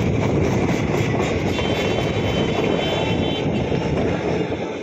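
Passenger coaches of an express train passing close by, their wheels running loudly on the rails, with a faint high whine for a couple of seconds in the middle. The noise starts to fall away near the end as the last coach goes past.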